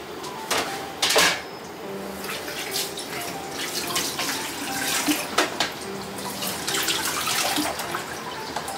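Water running from a kitchen tap into a sink, with a few sharp knocks, the loudest about a second in.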